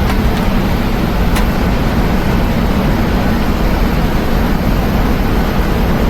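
Steady low roar inside the cabin of a Boeing 737-900 airliner, its engines and rushing air, with a faint click about a second and a half in.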